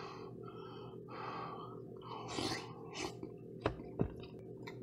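A man eating soup: soft chewing and breathing through the nose, with two light clicks of a metal spoon against a plastic bowl near the end.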